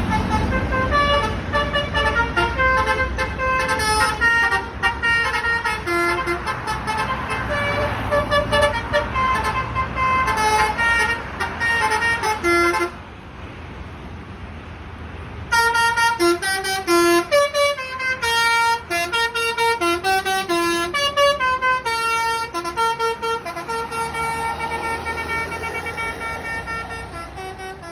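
Basuri telolet bus horn, a multi-trumpet musical horn, playing a tune of short stepped notes over low engine rumble. It stops for about two seconds midway, then plays on.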